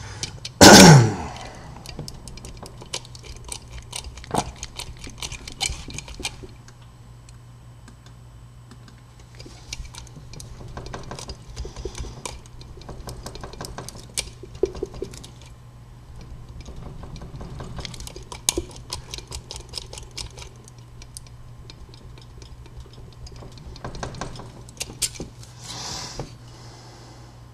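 Key impressioning on an old wafer padlock: small metallic clicks and scrapes come in bursts of several seconds, as the brass key blank is filed and worked back and forth in the lock to raise marks from the wafers. A loud, brief sound with a falling pitch comes a little under a second in.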